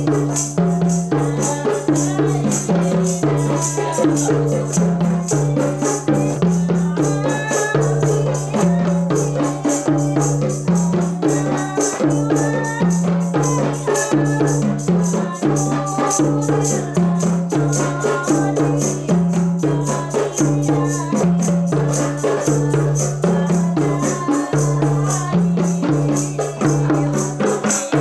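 Several rebana frame drums struck by hand together in a steady, fast interlocking rhythm, as in qasidah/hadroh playing.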